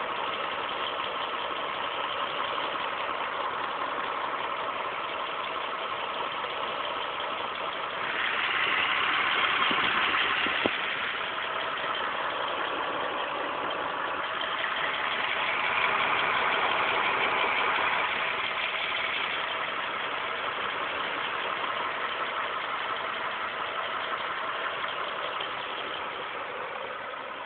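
2006 Mitsubishi Eclipse GT's 3.8-litre V6 running with a ticking noise whose cause the owner cannot find. The engine gets louder twice for a few seconds, and there is one sharp click at the end of the first rise.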